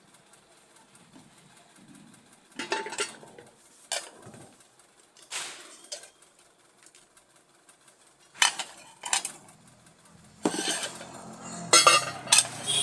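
Metal clinks and clanks of a pressure cooker and its parts being handled. A few separate knocks with short scrapes between them come closer together and louder near the end.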